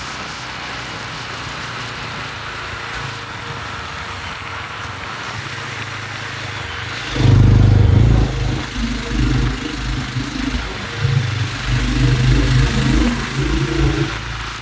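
Motorcycle riding along a highway, heard from the handlebars: steady engine and road noise, then about halfway in a sudden, louder, uneven low rumble that lasts until near the end.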